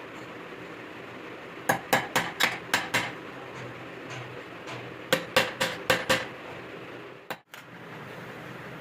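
A hammer striking metal in two quick runs of about six blows each, a few seconds apart, about five blows a second.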